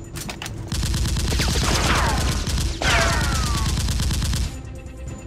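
Rapid automatic gunfire sound effect dubbed over a Nerf blaster being fired. It starts just under a second in and runs for nearly four seconds in two long bursts with a brief break between, overlaid with descending whistling streaks.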